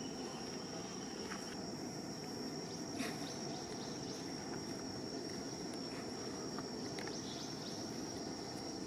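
Outdoor ambience: a steady, high-pitched insect drone over a low, even background rumble, with a few faint ticks, one slightly louder about three seconds in.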